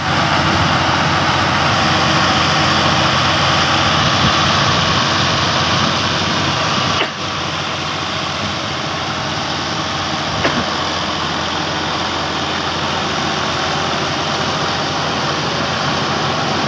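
New Holland 480 tractor's diesel engine running steadily under load, driving a rice thresher through its PTO shaft, with the thresher's drum and blower adding a loud, dense rushing noise as straw is blown out. The noise dips briefly about seven seconds in, then carries on slightly quieter.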